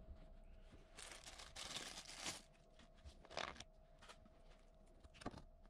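Faint rustling and crinkling of packaging being handled: a longer stretch about a second in, then two short ones.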